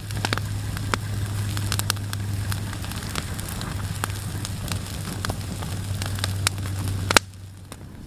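Wood campfire crackling, with frequent sharp pops and snaps over a steady low hum. It cuts off abruptly about seven seconds in, leaving a quieter outdoor background.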